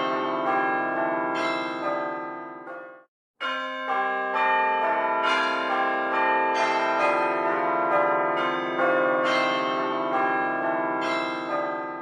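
Church bells ringing, many overlapping strikes each with a long ring. The ringing cuts off abruptly about three seconds in, starts again a moment later, and dies away near the end.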